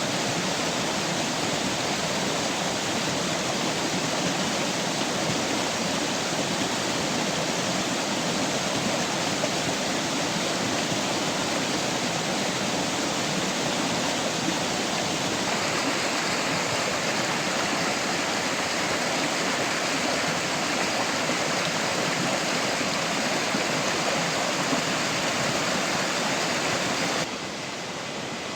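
Steady rushing of water, with a slight change in tone about halfway through and a sudden drop in level near the end.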